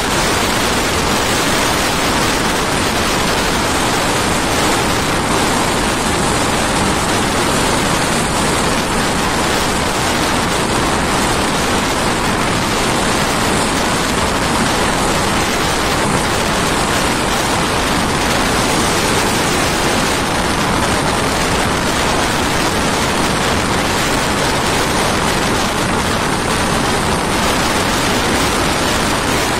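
Steady rush of wind and running noise from a moving passenger train, with the microphone held out of the carriage window.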